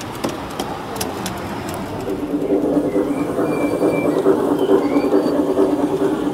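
G-scale garden railway train running past on its track: a steady whirr from the drive with the wheels rumbling over the rails, growing louder about two seconds in.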